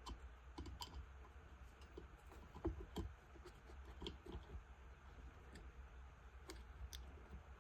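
Faint, scattered clicks and light knocks of small carburetor parts being handled and fitted back together, over a low steady hum.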